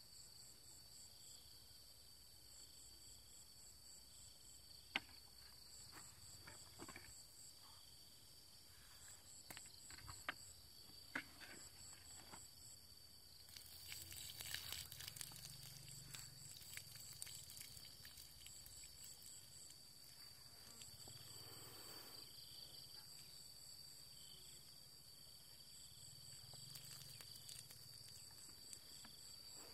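Faint insects chirping in short repeated trills throughout, with a few light knocks. About halfway through, muddy water is poured out of a bucket onto the ground for a few seconds.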